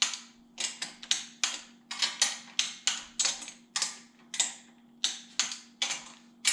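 Hand ratchet worked in quick, even strokes, giving sharp metallic clicks about three times a second.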